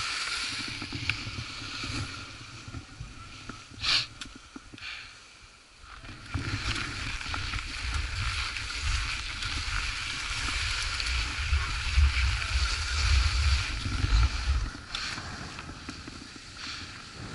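Skis sliding and scraping over packed, groomed snow, with wind buffeting the microphone. A brief sharp scrape comes about four seconds in, and a heavy wind rumble builds about six seconds in and eases off near the end.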